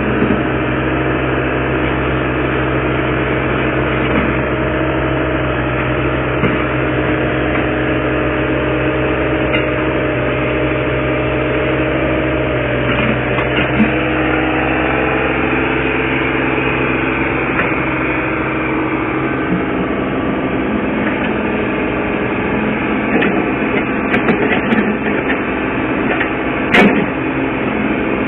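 Diesel engine of a Cat 303CR mini excavator running steadily under hydraulic load as it levers itself up onto a truck deck with its boom; the engine note shifts about two-thirds of the way through. A few metal clanks near the end, one sharper knock among them.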